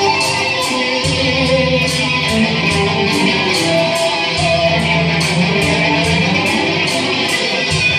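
Electric guitar played continuously over a steady beat of high, ticking cymbal strokes about twice a second.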